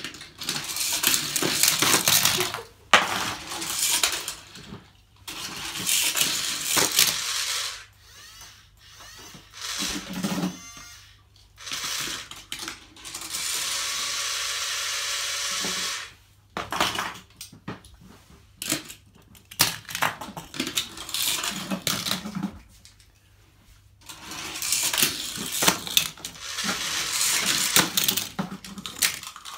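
Small toy cars rattling and clattering down a segmented plastic track, in repeated runs of a few seconds each with short pauses between.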